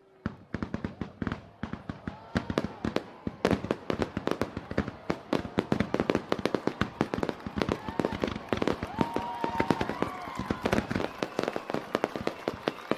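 Many fireworks and firecrackers going off in rapid, overlapping succession: a dense volley of sharp bangs and cracks, several a second, that starts abruptly.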